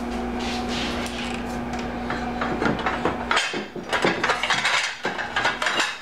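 A steady low hum, then from about halfway through a run of irregular clicks and knocks, as of a cupboard and dishes being handled.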